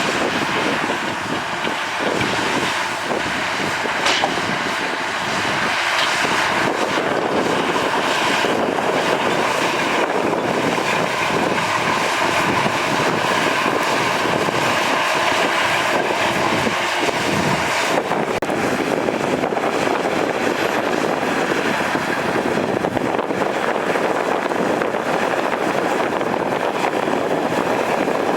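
Heavy earthmoving machinery at work: a bulldozer's diesel engine running steadily under load, with a brief sharp click about four seconds in.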